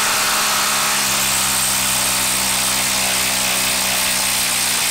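Milwaukee 2850-20 M18 brushless impact driver running in reverse, hammering steadily as it backs a 4.5-inch lag screw out of a wood round.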